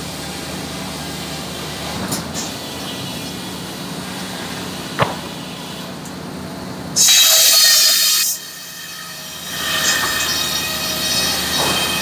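Sawmill breast bench circular saw running steadily. About seven seconds in, the blade cuts into an 8×4 timber with a loud, high-pitched whine for about a second and a half, and it cuts again near the end. A single sharp knock about five seconds in.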